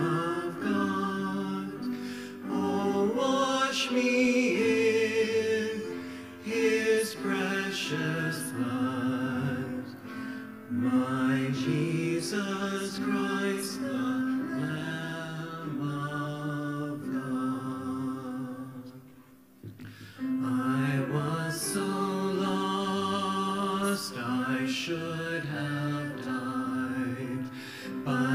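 A woman and a man singing a worship song with piano accompaniment, breaking off briefly about two-thirds of the way through.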